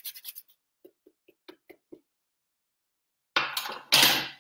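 Quick rasping strokes of a hand grater zesting a green lemon, which stop about half a second in. A run of about five light taps follows, then two loud scraping noises near the end.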